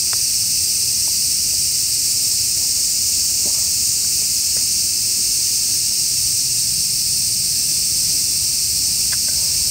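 Steady, high-pitched drone of a summer forest insect chorus, with a few faint clicks.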